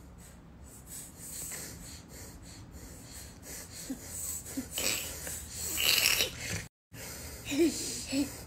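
Breathy hissing noises close to the microphone, getting louder around the middle, then a brief cut-out. After it, a baby makes short babbling coos near the end.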